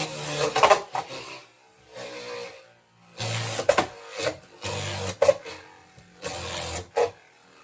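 Two Beyblade Burst spinning tops, Divine Belial and Cyclone Ragnarok, whirring and scraping as they spin around a plastic stadium, with sharp clacks as they collide several times.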